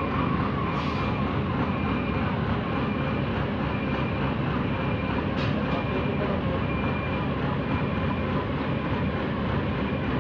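Heavy diesel engine of a Kobelco RK160-2 rough terrain crane running steadily with the outriggers set. A faint high beep repeats about once a second over it.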